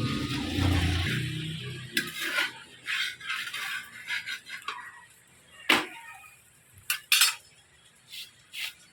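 Metal kitchen utensils clinking and scraping: scattered short, sharp clinks, a couple louder ones about six and seven seconds in, while music fades out in the first second or two.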